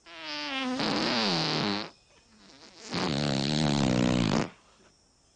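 Two long, wavering farts, each about a second and a half, with a pause between; the second is lower-pitched.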